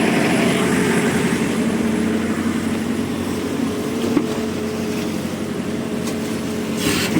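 Heavy machinery engine running steadily, with a brief knock about four seconds in.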